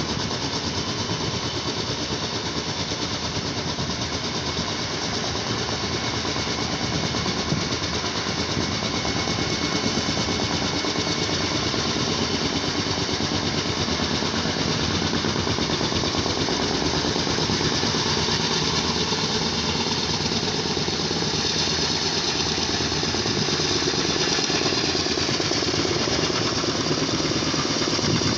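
Helicopter rotor chop and engine running steadily out of sight, a fast pulsing with a high whine over it, growing a little louder toward the end.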